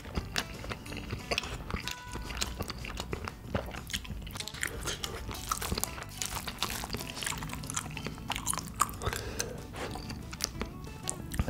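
Eating black bean sauce (jjajang) instant noodles: chewing and biting with many short, wet mouth clicks throughout.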